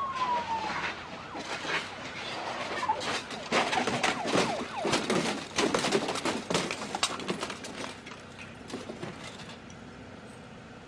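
Police siren falling in pitch and dying out within the first second, followed by several seconds of loud, jumbled sharp noises with wavering tones that fade away near the end.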